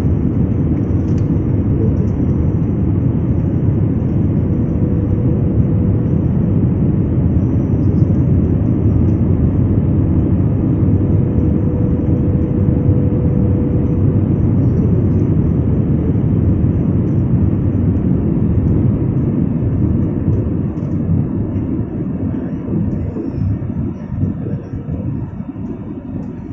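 Steady cabin noise of an Airbus A320-family jet on landing approach with its flaps extended: a loud, even rumble of engine and airflow with a faint steady hum. It eases a little in the last few seconds.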